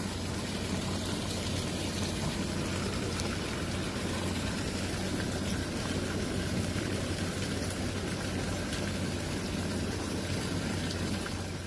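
Steady rushing of a small river in flood, with water splashing down from a wall outlet into the current, over a low steady hum.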